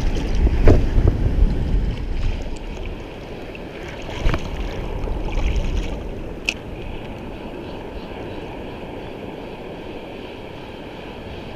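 Wind buffeting the microphone over the steady wash of sea waves, heaviest in the first two seconds, with a few short sharp clicks.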